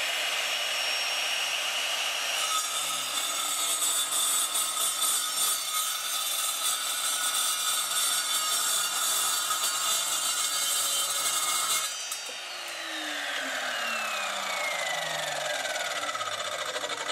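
Evolution Rage4 185 mm chop saw: the 1250 W motor runs free for a couple of seconds, then the multi-material blade cuts through mild steel box section with a loud, harsh hiss for about ten seconds. The motor is then switched off and the blade winds down with a falling whine.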